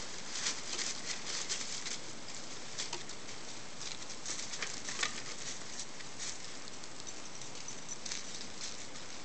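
Dry fallen leaves rustling and crackling in irregular short bursts as Greater Swiss Mountain Dog puppies root and step about in them.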